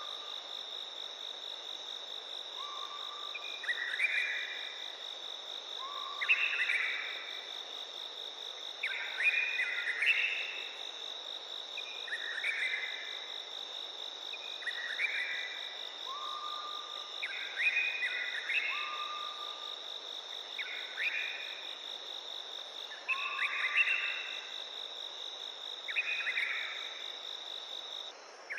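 A steady, high insect trill that cuts off near the end. Over it, another animal gives a loud call phrase about every two to three seconds: a short low note, then higher falling notes.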